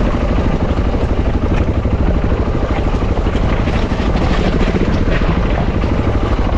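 A 650 cc dual-sport motorcycle's engine running steadily on a rough, rocky trail descent, with a fast, even pulsing beat and a few faint knocks.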